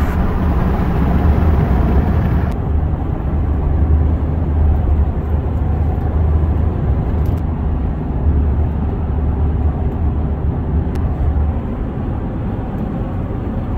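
Steady low engine drone and road noise inside the cab of a 2005 Dodge Ram Hemi pickup cruising at highway speed, its exhaust manifold leak freshly repaired. A high hiss drops away about two and a half seconds in.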